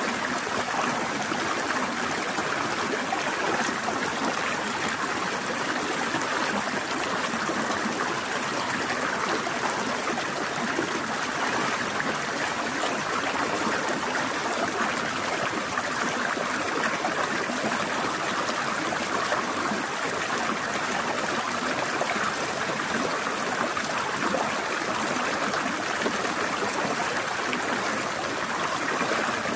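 Forest stream flowing and trickling over rocks, a steady rushing of water.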